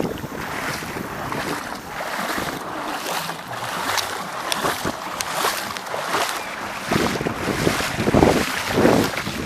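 Strong wind buffeting the microphone over the sea, with gusts growing heavier near the end, and wash of waves and water beneath it.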